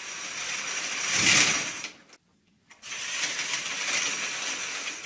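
Stage curtain sound effect: a curtain drawn along its track, in two pulls with a short break about two seconds in. The first pull swells to its loudest about a second and a half in.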